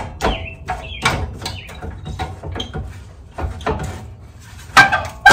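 Irregular metallic clicks and clanks as the Subaru Sambar's stock exhaust and muffler are worked loose by hand, with the loudest knocks near the end. Small birds chirp in the background.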